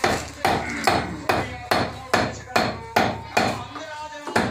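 Hammer blows at a steady pace of about two and a half a second, each a sharp knock with a brief ring, typical of pounding leather in handmade sandal work.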